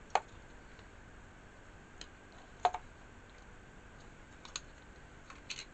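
A handful of sharp clicks and light ticks from eating and handling food, the loudest about two and a half seconds in, over a faint steady high hum.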